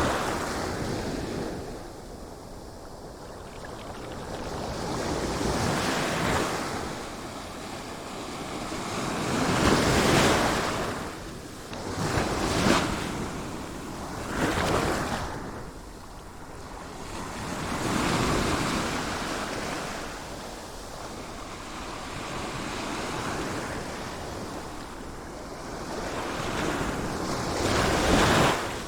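Sea surf: waves break and wash in, the rush swelling and easing every few seconds, with a few sharper crashes.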